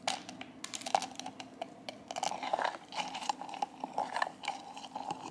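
Crisp ticks and crunches of puffed pearl barley being dropped into a jar, then a metal spoon clinking and scraping against the jar as it stirs the barley into milk.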